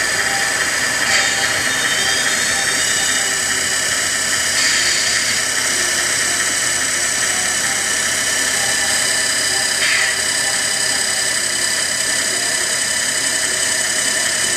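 Steady high electric whine from a Tamiya radio-controlled model dump truck as its dump bed tips up, with a few brief changes in the sound along the way.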